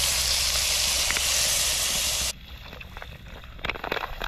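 Loud sizzling hiss as water hits hot vegetables in a cast-iron Dutch oven over a campfire, cutting off sharply a little over two seconds in. Near the end, water from a plastic bottle pours and splashes into the liquid in the pot.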